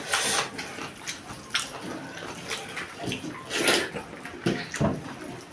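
Close-up eating sounds from a meal of rice, dal and vegetables: wet chewing and mouth sounds in irregular bursts.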